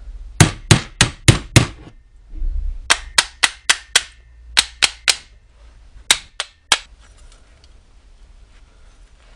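A hammer tapping the aluminium housing of a Mitsubishi Eclipse 4G63 alternator, knocking the two case halves apart once the through-bolts are out. About seventeen sharp metallic knocks come in quick runs of three to six and stop about seven seconds in.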